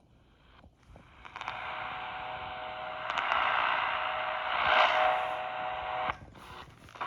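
Radio static hiss heard through a radio receiver. It comes in about a second in, grows louder, and cuts off suddenly a little after six seconds.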